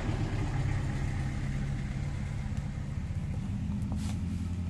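Steady low hum of a motor running at constant speed.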